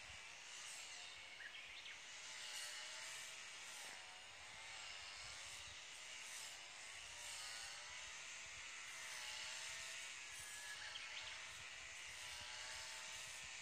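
A distant brush cutter's small engine running, its pitch rising and falling as the throttle and cutting load change.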